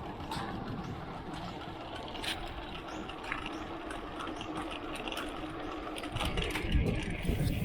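Water bottle cage on a mountain bike rattling in quick, irregular clicks while riding over rough ground, over a low rumble from the tyres on the trail that grows louder near the end.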